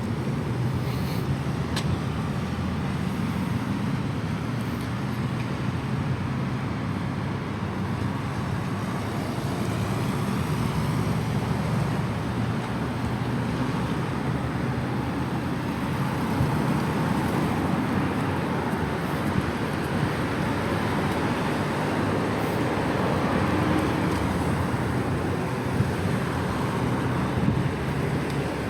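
Steady city road traffic: cars and other motor vehicles running past in a continuous rush.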